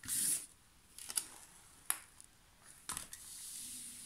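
Paper rustling as hands smooth and press the protective release sheet of a diamond painting canvas. A loud rustle comes at the start, then a few sharp crackles and light rubbing.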